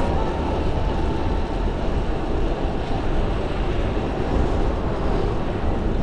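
Steady wind rush and road noise from riding a bicycle at speed, dominated by a low rumble of wind buffeting the microphone.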